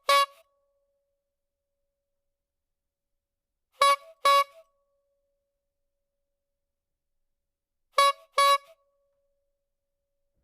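Clown horn (squeeze-bulb horn) honking in quick pairs, honk-honk, with a pause of about four seconds between pairs: a single honk right at the start, then two double honks.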